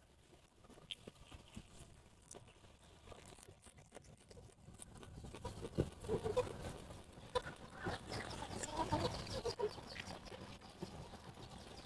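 A person eating: wet chewing and mouth clicks with short low vocal sounds, starting about halfway through after near silence.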